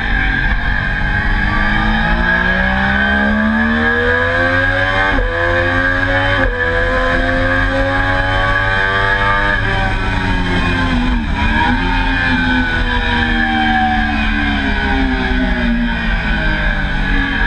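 Triumph Daytona sport-bike engine heard onboard at racing speed. It revs up hard through two quick upshifts, then the pitch falls under braking with a downshift blip about 11 seconds in, and it revs up again before falling off near the end. Heavy wind rush sits under it throughout.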